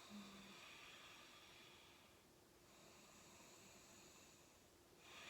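Faint, slow, deep breaths drawn in and out, each breath lasting about two and a half seconds: deliberate yoga breathing.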